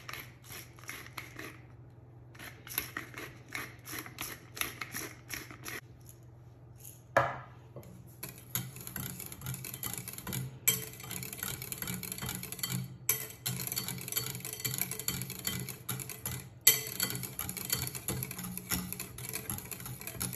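Wire whisk beating thick homemade mayonnaise in a glass bowl: the metal whisk scrapes and clicks against the glass. The first few seconds hold slower, spaced strokes, and from about eight seconds in the whisking turns fast and steady, with a few louder knocks on the bowl.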